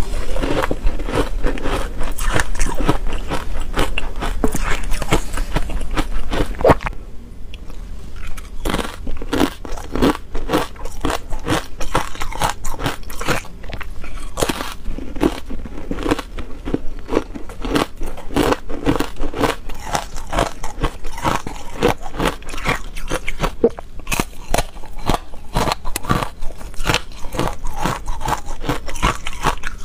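Ice coated in matcha powder being bitten and chewed: dense, rapid crunching and crackling throughout, which drops slightly in level and changes texture about seven seconds in.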